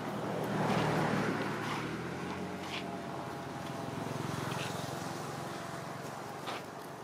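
A motor vehicle's engine passing by: a hum that swells to its loudest about a second in, then slowly fades. A few short, faint clicks sound over it.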